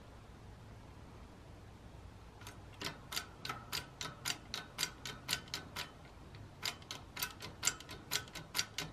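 Hand pump of a Harbor Freight 20-ton hydraulic shop press being worked, pressing a bearing out of a jackshaft: a quick run of sharp metallic clicks, about three or four a second. The clicks start a couple of seconds in and pause briefly around the middle.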